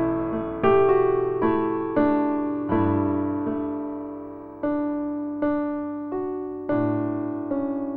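Slow background piano music: a soft chord struck about once a second and left to fade.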